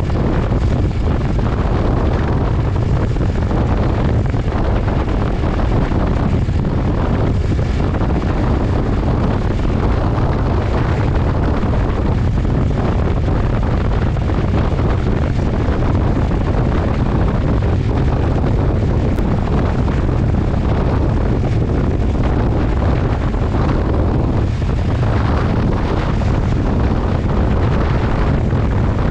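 Motorcycle riding at highway speed, its engine and exhaust under heavy wind rumble on a GoPro microphone, steady and even.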